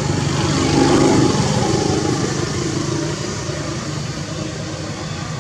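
A motor vehicle's engine running steadily with a fast, even pulse, slowly getting quieter.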